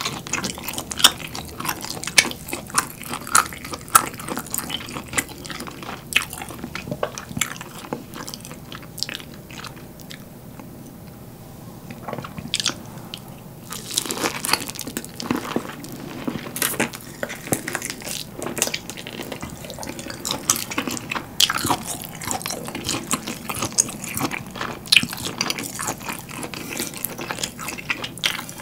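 Close-miked chewing of smoked pork belly, with many quick sharp mouth clicks and smacks. It eases off for a few seconds near the middle, then another bite brings the clicking back.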